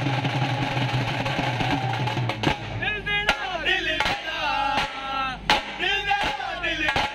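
Dhol drums struck hard and unevenly, starting about two and a half seconds in after a steady noisy hum, with a sung melody running over the drumming.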